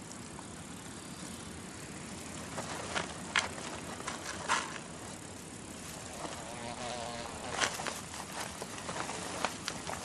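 Quiet outdoor ambience with a few short, soft rustles and scrapes. An insect buzzes briefly a little after the middle.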